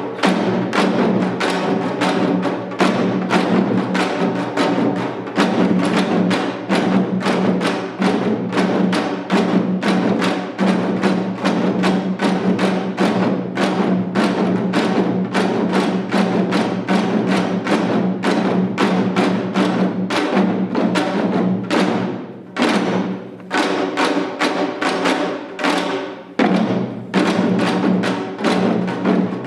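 Korean janggu (hourglass drum) playing in a seated seoljanggu piece: a fast, dense stream of sharp strokes, broken by two short pauses near the end.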